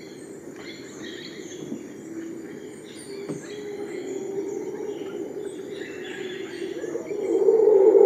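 Tropical rainforest ambience: many birds chirping and calling over a steady high-pitched insect drone, with a lower droning animal sound underneath that swells loud near the end.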